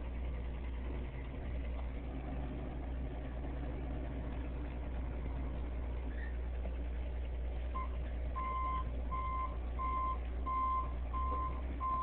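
A heavy diesel engine running with a steady low rumble; about eight seconds in, a backup alarm starts beeping, a little under two beeps a second, and keeps going.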